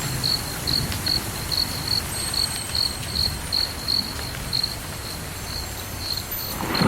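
A cricket chirping: short chirps at one high pitch, about two or three a second, over a low steady rumble.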